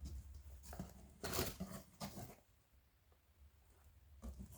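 Faint rustling and handling of packaging as kit parts are taken out of a box: several short bursts in the first two seconds, then almost quiet.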